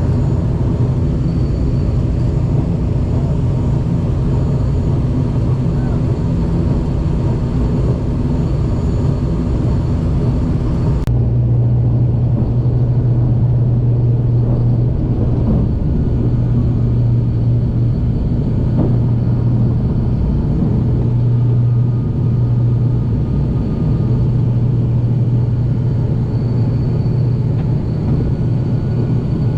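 Steady low rumble of a vehicle heard from inside, with a constant low hum. About 11 seconds in the sound changes abruptly to a steadier, deeper hum, as at a cut between two recordings.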